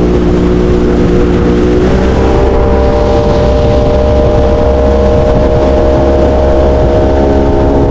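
Small fishing boat's outboard motor running under way. It steps up in pitch about two seconds in as it speeds up, then holds a steady drone.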